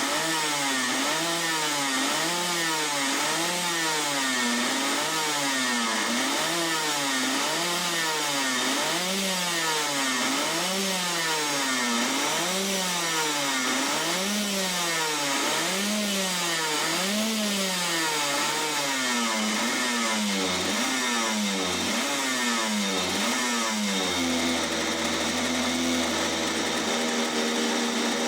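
Comer 100cc reed-valve two-stroke kart engine revving up and falling back over and over, about every second and a half. About 24 s in, it settles into a steady idle.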